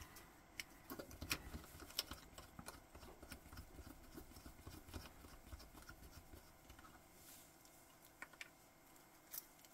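Faint, scattered small clicks and light scraping of a stainless steel watch bracelet worked in a screw-type link pin removal tool as a split pin is pushed out of a link.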